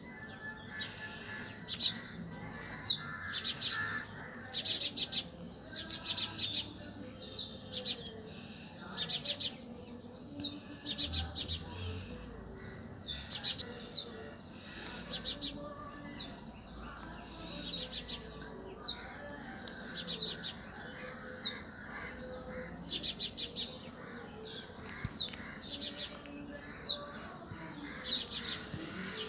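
Small birds chirping: short high chirps and quick rattling trills repeated every second or two, over a steady low background.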